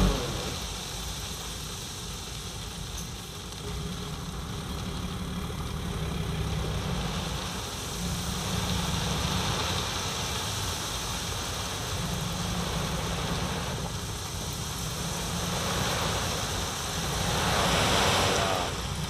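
Diesel engine of a Hino Ranger dump truck running steadily while the hydraulic hoist tips the bed up to unload crushed stone. Near the end a rushing noise swells as the load slides out.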